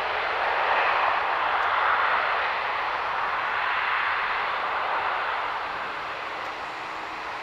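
Boeing 747's four jet engines at take-off power, a loud steady roar that swells and eases as the jet rolls down the runway, dropping a little near the end.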